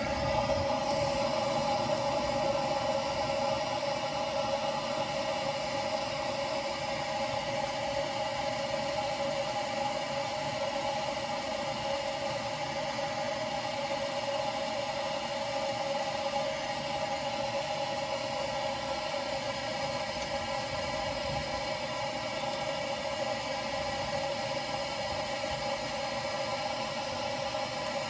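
Gas blowtorch flame running steadily with a constant hiss, heating a copper pipe joint for soldering. It starts abruptly and holds without a break.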